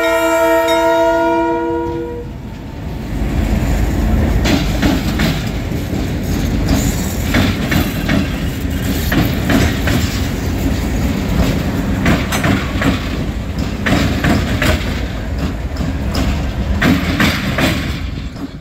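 A multi-chime locomotive air horn sounds for the level crossing and cuts off about two seconds in. Then three ALCO Montreal Locomotive Works six-axle diesels (M630, M636, M630) run past, their ALCO 251 V16 engines making a steady low rumble, with the wheels clicking sharply over the crossing's rail joints.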